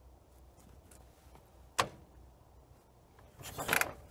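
Quiet garage room tone with one sharp click about two seconds in, then short clattering handling noises of tools or parts near the end.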